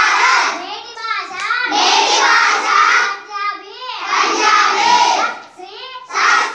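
A class of young children reciting in chorus, call and response: a single child's voice reads out a short phrase and the whole class repeats it loudly in unison, over and over in a sing-song rhythm. The phrases are most likely Punjabi ones being learned.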